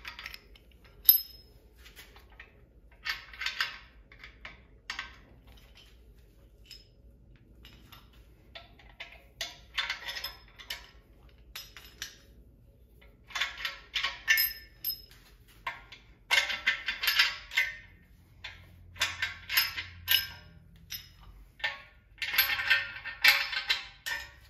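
Hand tools and metal engine parts clinking and clattering in irregular bursts, with a few sharp ringing pings.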